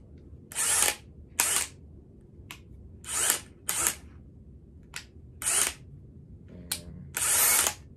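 DeWalt 20V XR cordless hammer drill run unloaded in short trigger pulls: about eight bursts of motor whir, some only a blip, the last one the longest.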